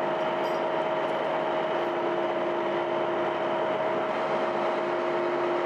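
Heavy machinery running steadily, a constant drone with a steady two-note hum on top.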